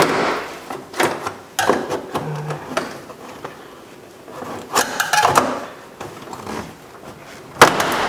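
Plastic retaining clips of a 2003 Honda Civic's front door panel popping loose as the panel is pried off the door with a clip tool, with scraping and creaking of the plastic trim between the pops. The loudest sharp pop comes near the end.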